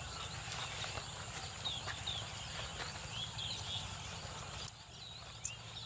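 Outdoor rural ambience: small birds chirping now and then over a steady low hum and a steady high-pitched hiss, with a few faint clicks.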